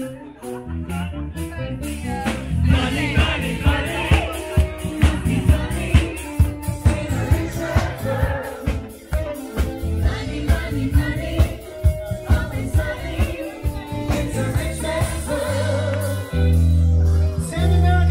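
Live band playing upbeat dance music, with several singers on microphones over a steady beat and bass line. Near the end the band hits loud, held low notes.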